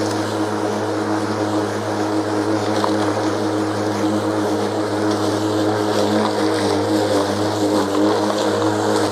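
Stihl battery lawn mower running as it is pushed along cutting grass: a steady electric motor and blade hum.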